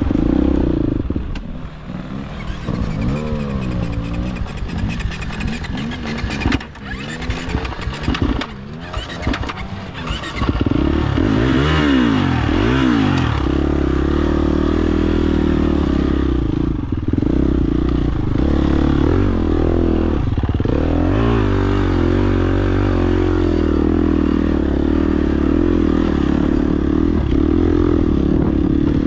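Dirt bike engine revving and labouring on a trail, its pitch rising and falling with the throttle, with a few knocks in the first third. About ten seconds in it gets louder and holds a steadier, higher-revving pull.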